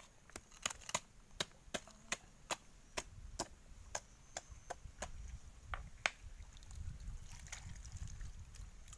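Sharp, hard taps, about two to three a second, as grilled sea urchin shells are knocked and handled on beach stones. They stop about six seconds in with one louder tap, leaving a low rumble.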